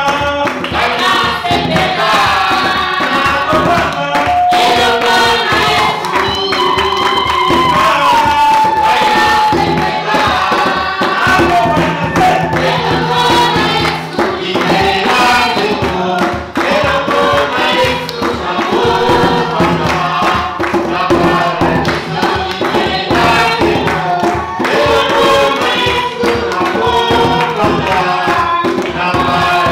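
Church choir singing a worship song over a band with a steady beat.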